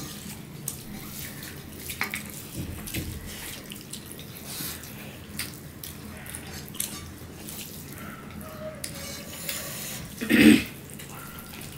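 Hands mixing rice with curry on plates, and people chewing and smacking: wet squishing with many short clicks, and one louder sound about ten and a half seconds in.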